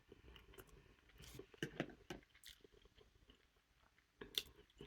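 Faint close-up chewing: soft wet mouth smacks and clicks while eating oxtail.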